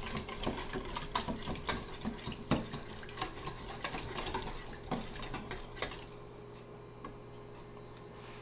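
Wire whisk beating a dressing in a stainless steel mixing bowl: quick metallic clinks and scrapes against the bowl, stopping about six seconds in, leaving only a few faint taps.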